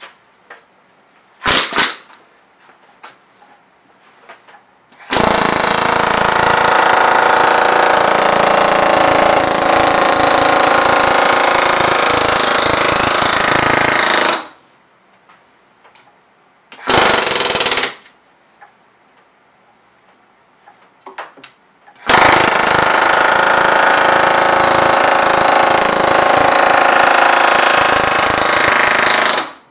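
Pneumatic air hammer rapidly hammering the edge flange of a thin 0.025-inch aluminium wing rib down over a clamped form block. It runs in bursts: a brief one about a second and a half in, about nine seconds from five seconds in, a second-long burst near the middle, and about seven seconds near the end, with quiet gaps between.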